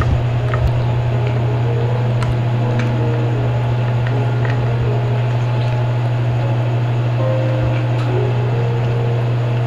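A steady low hum runs throughout. Over it come faint, irregular crunching clicks of a cat chewing dry kibble from a stainless steel bowl.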